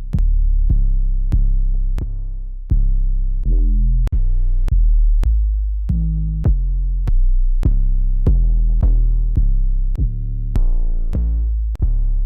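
Distorted trap 808 bass notes played one after another at changing pitches, each starting with a sharp click. One note slides down in pitch near the end.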